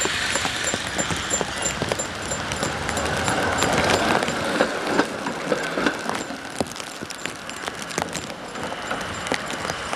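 HTM PCC tram rolling past close by on wet street track, its wheels clicking and clattering over the rails. It is loudest as the car passes, about four seconds in.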